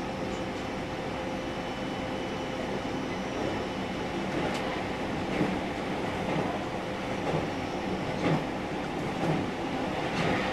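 JR Central 313 series electric train running at speed: a steady rumble of wheels on rail with a faint steady hum, and a few sharp clicks from the wheels on the track in the second half.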